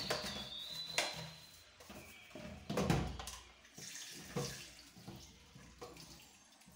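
Washing up at a kitchen sink: water splashing while a plastic dish rack is scrubbed, with a few knocks and clatters of dishware against the sink, the loudest about halfway through.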